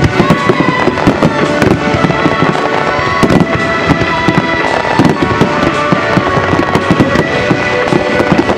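Star mine fireworks barrage: a dense, unbroken run of shell bursts and crackling, many bangs a second.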